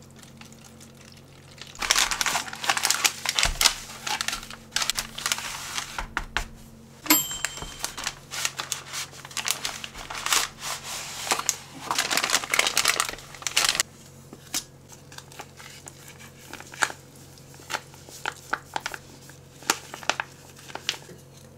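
Crinkling and rustling of plastic MRE packaging handled by gloved hands: the flameless ration heater bag in its cardboard sleeve, then a foil meal pouch. Dense crinkling comes in long stretches through the first half and turns to sparse crackles and taps for the last several seconds.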